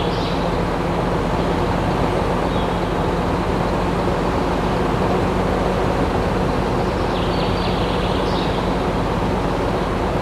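A machine running steadily, a continuous noise over a constant low hum.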